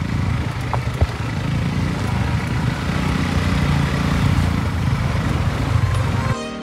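Motorcycle engine running on the move: a steady low drone with a rushing hiss over it. It cuts off near the end as music comes in.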